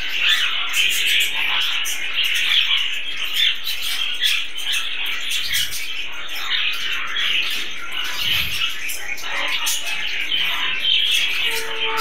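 A colony of budgerigars chattering: a continuous, dense run of overlapping chirps and warbles. A steady held tone comes in near the end.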